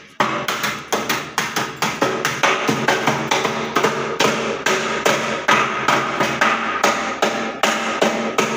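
A metal hammer and a mallet striking the steel body of a maize grinding machine in quick alternation, about three to four blows a second, the steel ringing after each blow.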